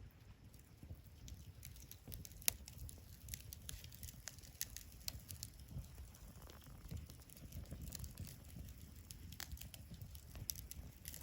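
Wood fire crackling, with irregular sharp pops, the loudest about two and a half seconds in, over a faint low rumble.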